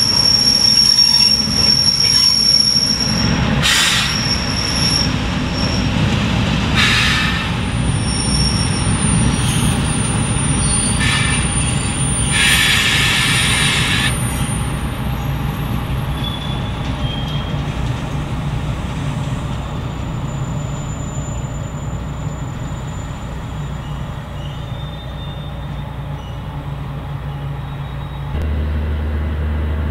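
Steel wheels of a train of open freight wagons squealing on the rails as a diesel shunting locomotive hauls them, over the low rumble of the locomotive's diesel engine. High squealing tones run through the first half, with several short bursts of screeching about 4, 7 and 12 to 14 seconds in. The sound slowly fades, and near the end it gives way to a steadier low engine hum.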